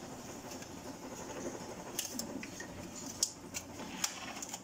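A kitchen oven running with a faint steady hum, with several sharp clicks in the second half.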